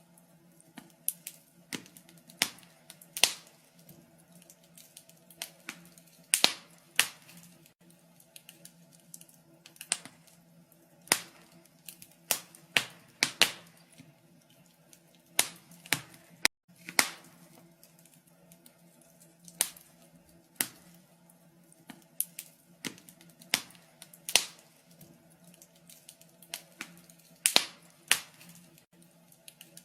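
Wood fire crackling in a fireplace: irregular sharp pops and snaps, about one or two a second, some louder than others.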